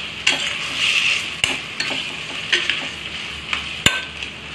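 Spiced potato-and-pea stuffing sizzling in oil in a stainless steel kadhai while it is stirred with a steel spoon, the spoon clicking sharply against the pot several times.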